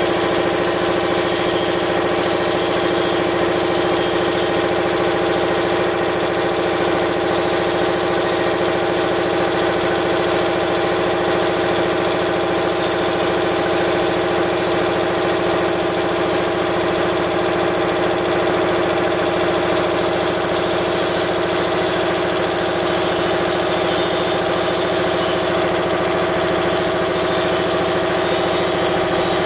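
High-pressure air-cooled air compressor running steadily: a continuous mechanical drone with a fast pulsing beat underneath, and a steady hiss of air over it.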